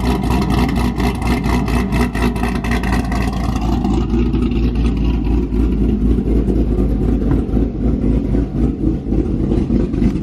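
Freshly cammed C7 Corvette Z06's supercharged 6.2-litre LT4 V8 idling with a rhythmic, lopey chop, running on the new cam without a tune; the car is shaking with it. About four seconds in the sound turns duller as it is heard away from the tailpipes and from the cabin.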